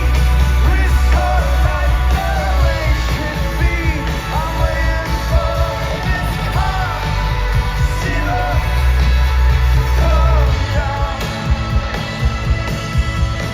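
Indie rock band playing live: a singer's voice, strained in places, over a full band with heavy bass and drums.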